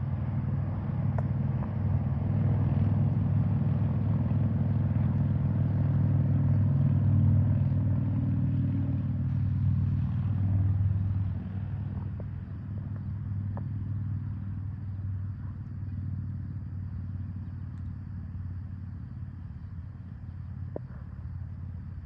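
Motor vehicle engine running, a steady low hum that is loudest for the first ten seconds or so, then eases off and carries on more quietly.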